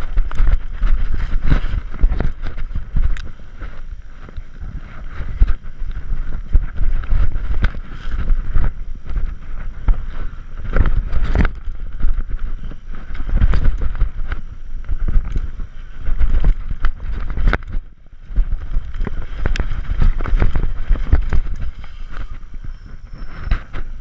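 Mountain bike riding down a dirt singletrack, heard from a camera on the rider: wind buffeting the microphone and tyres rumbling over dirt and roots, with frequent sharp knocks and rattles from the bike over bumps.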